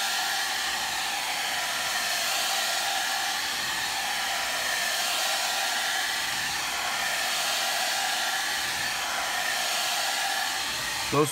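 Hand-held hair dryer blowing steadily on a freshly painted leather seat, a constant rush of air with a faint motor whine, drying the coat of leather paint before the next coat goes on.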